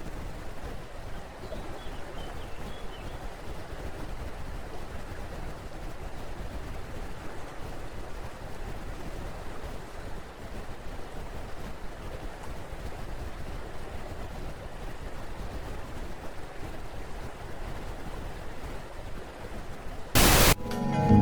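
Steady, even noise like hiss or wind. Near the end comes a short, loud burst of noise, cut off sharply.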